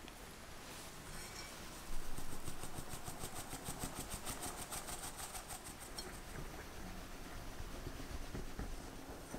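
Flour and cocoa mixture sifted through a fine wire-mesh sieve. From about two seconds in, the sieve is shaken in a quick, even rhythm that rasps the powder through the mesh. Near the end, a wire whisk starts stirring it into the batter in a glass bowl.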